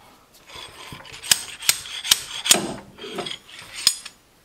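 Metal scraping and sharp clicks from an injector puller being worked on a seized diesel fuel injector, with about five sharp clicks between one and four seconds in.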